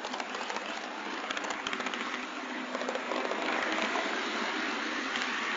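Model train running, heard from the moving train itself: a quick run of wheel clicks and rattles over rail joints and points in the first half, then a steadier, louder rushing rumble of the running train.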